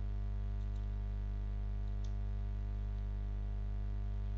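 Steady electrical hum with a stack of evenly spaced overtones on the recording line, with a few faint computer keyboard clicks as text is typed.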